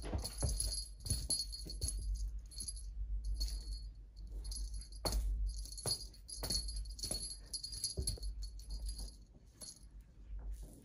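Small jingle bell on a cat wand toy jingling in irregular shakes, with light taps and knocks as a kitten bats at the toy.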